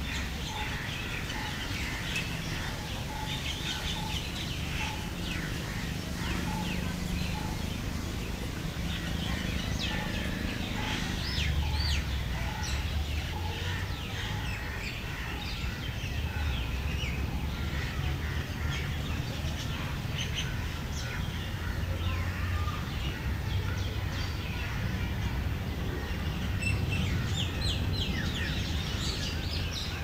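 A chorus of many small birds chirping and singing, dense short high calls and quick falling notes overlapping throughout, over a low steady rumble.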